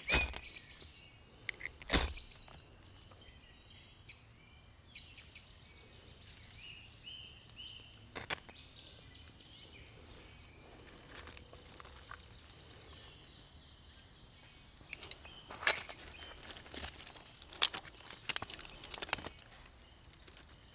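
Ferro rod scraped hard with a knife spine over damp bark tinder: a series of sharp rasping strikes, a couple near the start, one about 8 seconds in, and a quick cluster near the end as the sparks catch. Birds chirp between the strikes.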